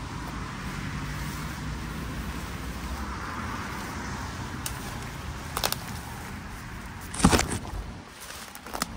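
Road traffic passing, a steady rush of tyres and engines that swells about three seconds in. A few sharp clicks and knocks cut through, the loudest cluster about seven seconds in.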